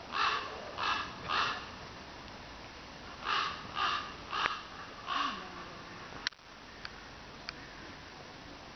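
A crow cawing: three caws close together, then after a pause four more. A few sharp clicks follow once the cawing stops.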